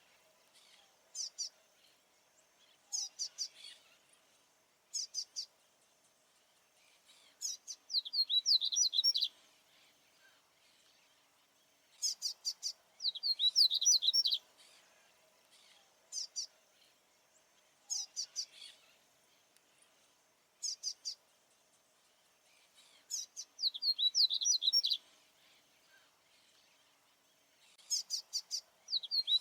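Male papa-capim baianinho seedeater singing over and over: bursts of rapid, high-pitched notes, some phrases short and some about two seconds long, separated by pauses of a few seconds. A faint steady low hum runs underneath.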